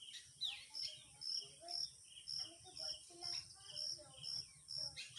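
Evening insect chorus: crickets chirping in an even rhythm of about two pulses a second over a constant high-pitched drone, with short lower calls scattered through it.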